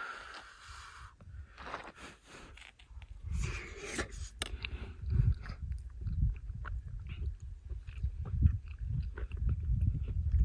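A person chewing a mouthful of chicken and dumplings close to the microphone. Irregular wet mouth sounds start about three seconds in.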